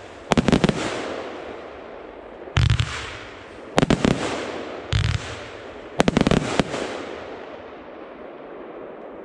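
Albert Feuerwerk 'Push it to the Limit' 25 mm firework compound cake firing: a cluster of sharp bursts right at the start, then twice a low thump of a volley launching followed about a second later by a rapid cluster of sharp cracks as the shells break. A hiss trails after each cluster, and the last one fades out over the final few seconds.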